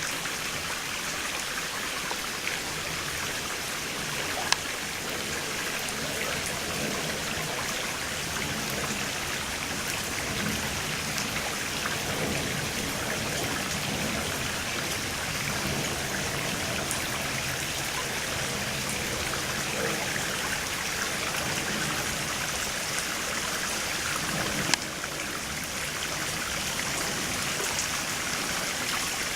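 Shallow stream water running steadily over stones, with two sharp clicks, one about four seconds in and one near the end.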